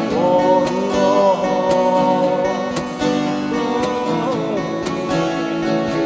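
Strummed acoustic guitar chords with a held melody line over them, which slides down in pitch about four seconds in. This is an instrumental passage of a pop ballad.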